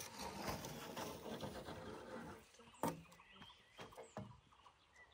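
Charred branches and ash being handled and trodden on: a couple of seconds of crackling, rustling and crunching, then a sharp knock about three seconds in and a few lighter clicks.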